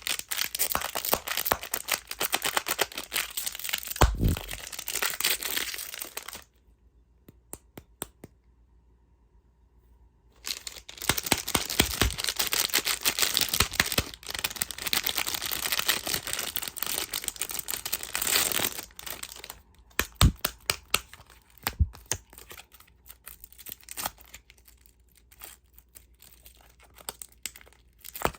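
Plastic candy wrappers being crinkled and torn open by hand, in two long stretches with a pause between them, then scattered separate crackles and taps near the end.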